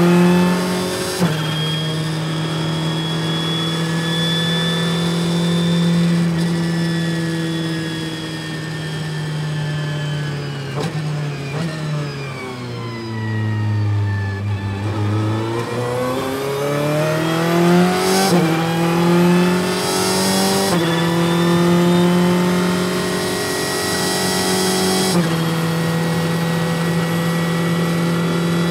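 A Ferrari 488 GT Modificata's twin-turbo V8 under hard track driving, heard from inside the cockpit. The engine note holds high, then falls with quick downshifts under braking into a slow corner about halfway through. It then climbs again on the throttle, with three upshifts as the car gathers speed.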